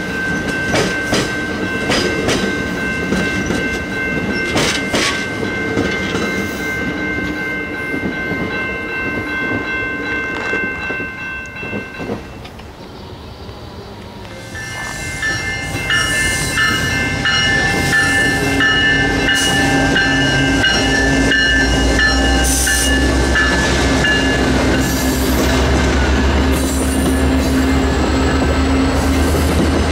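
Bilevel commuter coaches rolling past on the rails, wheels clicking over the joints, with steady ringing tones above. The sound dips briefly about halfway through. Then another commuter train passes a grade crossing, with the crossing-signal bell ringing in an even pulse and a deep engine rumble building from about two-thirds of the way in.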